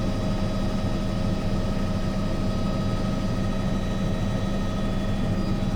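Steady engine drone of an aircraft in flight, heard from inside the cabin: a constant hum with several unchanging tones.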